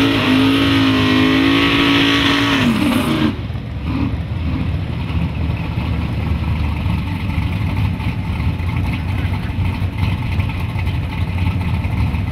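A drag-race engine held at high revs under the hiss of spinning tyres in a burnout, cutting off abruptly about three seconds in. Then a Chevrolet S-10 Xtreme pickup's engine runs at low revs with a low, uneven rumble as the truck rolls out of its burnout smoke.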